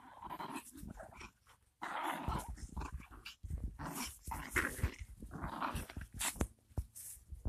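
A chihuahua growling in several short bursts as it nips at a person's pants leg, a sign of its aggressive play-attack. Low scuffs and thumps of feet moving on grass run underneath.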